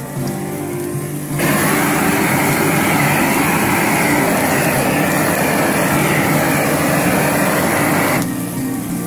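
Propane garden flame-thrower torch burning with a loud, steady rush of flame; it comes on suddenly about a second and a half in and cuts off near the end.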